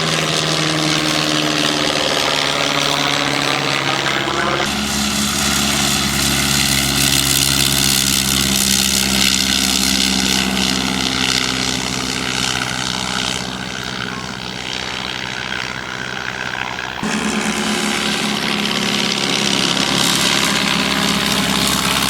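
De Havilland Tiger Moth biplane's Gipsy Major four-cylinder engine and propeller running at take-off power, a steady drone whose pitch bends slightly as the aircraft moves. The sound changes abruptly about a fifth of the way in and again about three-quarters of the way in.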